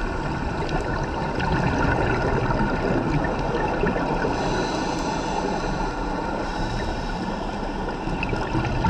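Steady rushing and bubbling water noise with a few faint ticks.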